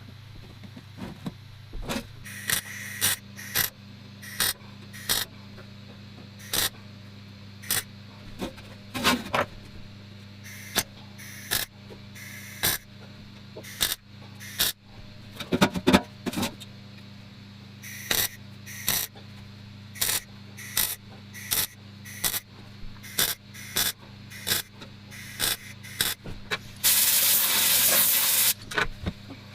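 Sharp clicks and knocks at irregular intervals over a steady low hum, then a burst of spray hiss lasting a couple of seconds near the end.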